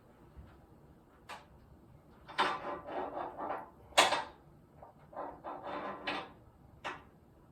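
Sharp clicks and knocks with two stretches of rattling clatter, the loudest knock about four seconds in, as tools and metal parts are handled during the lift repair.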